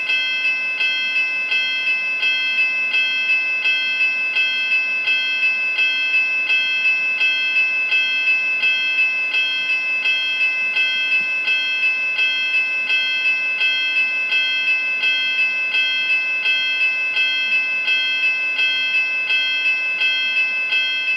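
Railroad crossing bell ringing over and over at an even pace, about two to three rings a second.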